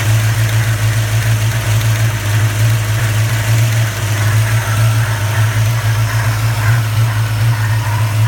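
1994 Chevrolet Caprice LT1 5.7-litre V8 idling steadily under the hood, with a strong low hum and an odd whooshing, rubbing noise whose cause is unknown.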